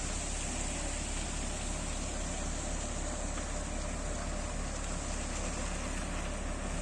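Concrete mixer truck's diesel engine running steadily with a constant low rumble.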